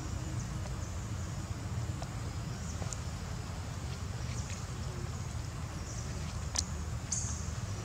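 Outdoor background: a steady low rumble with scattered faint clicks, one sharper click about six and a half seconds in.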